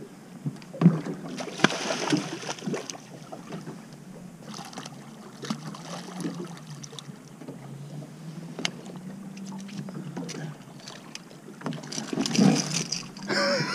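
Fishing boat's engine running steadily, with scattered clicks and knocks and a louder rush of noise near the end.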